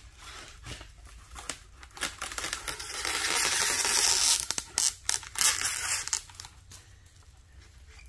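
Plastic cling wrap being pulled off the roll and torn, with crinkling; it is loudest through the middle and ends in a few crackles.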